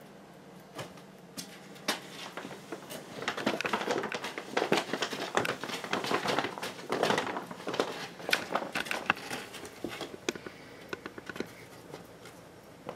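Brown paper grocery bag crinkling and rustling as a kitten scrambles about inside it, with claw scrabbles and light knocks. The rustling is sparse at first, busiest through the middle, and thins to scattered taps near the end.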